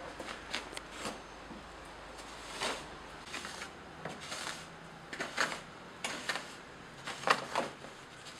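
A wooden stick stirring dry powder in a builder's bucket: irregular scrapes and knocks as the stick drags through the powder and hits the bucket wall.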